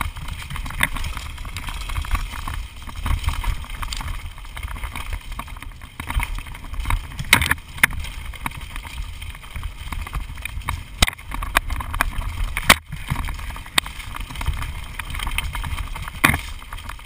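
Mountain bike rattling and clattering down a rough dirt trail at speed, with frequent sharp knocks as it hits bumps. A heavy wind rumble buffets the microphone throughout.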